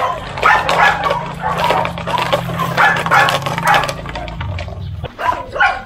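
A five-month-old Belgian Malinois growling steadily while it grips and tugs a towel in bite-drive training; the growl stops about five seconds in.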